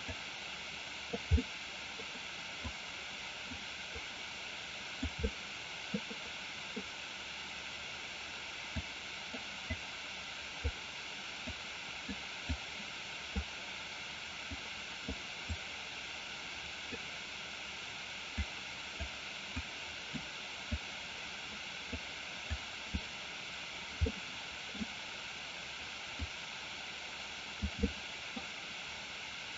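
Steady microphone hiss with scattered short, low knocks at irregular intervals, one or two a second: computer mouse clicks and knocks on the desk while sculpting with the mouse. The sharpest knock comes about a second in.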